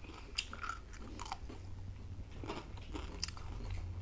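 Raw cucumber slices being bitten and chewed: about four crisp crunches spread through, with quieter chewing between.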